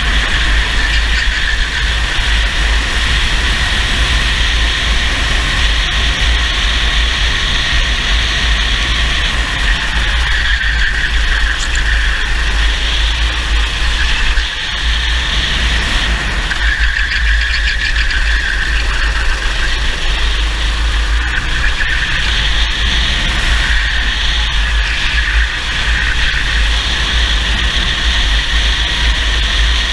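Racing kart engine running hard, heard from the kart's own onboard camera with heavy wind buffeting on the microphone. The engine note dips briefly about halfway through as the kart slows for a tight corner.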